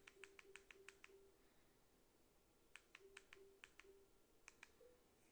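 Faint, quick clicks of TV remote-control buttons being pressed, with soft low tones from the TV's menu as the focus moves. The clicks come in runs: about eight at the start, about six just under three seconds in, and two more near the end.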